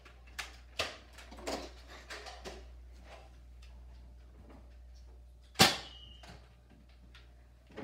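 Scattered light knocks and clicks from Nerf play, then one loud sharp snap about five and a half seconds in.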